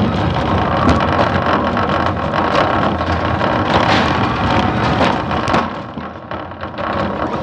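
Electric warehouse truck, such as a forklift or order picker, driving along the aisles with a steady rumble and a dense clatter of rattles and knocks, easing off a little near the end.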